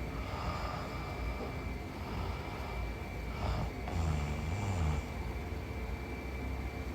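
A sleeping woman breathing and snoring: slow breaths, then a low snore about a second long starting about four seconds in, over a steady background hum.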